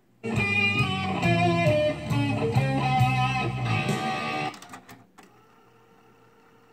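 Guitar music played back from a cassette on a JVC KD-VR5 deck. It starts just after a brief gap at the beginning and cuts off about four and a half seconds in, leaving near silence with a faint steady hum.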